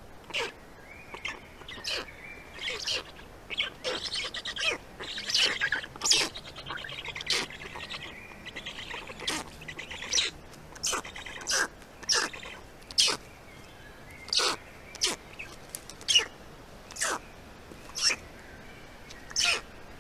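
Black stork chicks calling in the nest: short, harsh calls repeated about once a second, irregularly, with fainter tonal bird calls behind them.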